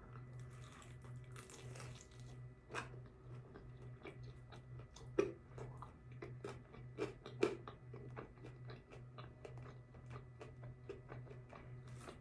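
A person chewing food close to the microphone: irregular crunches, wet mouth clicks and smacks, a couple of louder ones around the middle. A steady low hum runs underneath.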